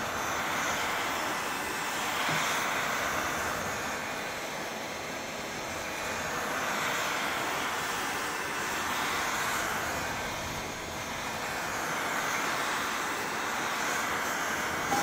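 Heat gun blowing hot air, a steady rushing hiss that swells and eases gently every few seconds, heating a headlight housing to soften its seal so the lens can be opened.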